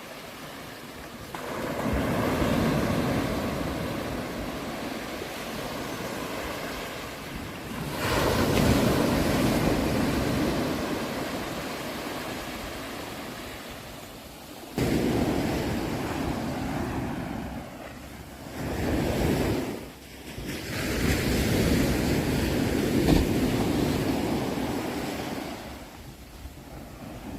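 Ocean surf: waves breaking and washing up a shore, a new wave rushing in every few seconds with the hiss swelling and ebbing between them, and one surge arriving suddenly about halfway through.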